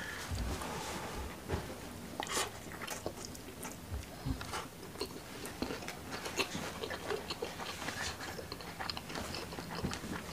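Close-miked chewing and wet mouth smacks of someone eating rice and fried fish in chili sambal by hand, a quick run of many small clicks.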